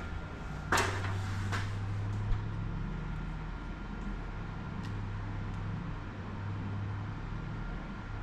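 Air conditioner running with a steady low hum, with two knocks about a second in.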